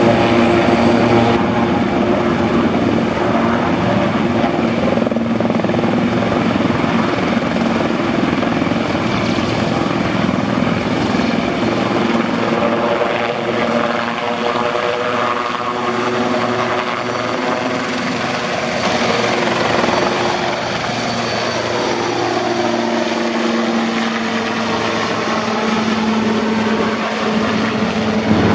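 Sikorsky S-76B twin-turboshaft helicopter taking off and flying away: a steady loud mix of rotor noise and a high turbine whine that slowly rises, with the tones bending in pitch near the end as it passes overhead.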